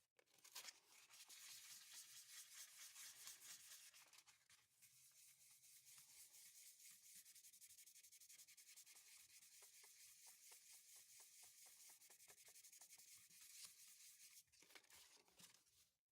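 Faint hand sanding with sandpaper on a pocket knife's acrylic handle scales at the bolster transitions: a scratchy hiss with an even back-and-forth rhythm of about three strokes a second.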